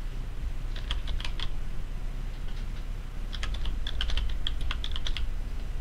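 Typing on a computer keyboard: a short flurry of keystrokes about a second in, then a longer run of keystrokes from the middle to near the end.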